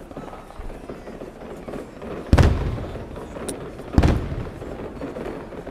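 Aerial firework shells bursting in a fireworks display: two loud booms, a little over two seconds in and again about four seconds in, each fading off over a moment, with quieter noise between them.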